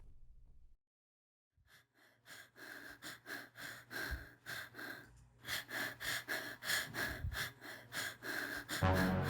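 A person panting in quick, short breaths, about two to three a second, starting about a second and a half in; low music comes in near the end.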